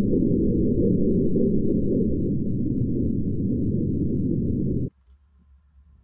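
A LEGO Technic gear train and wheel spinning at about 13,100 RPM. It makes a loud, steady, deep and muffled mechanical whir with nothing high in it, and it cuts off suddenly about five seconds in.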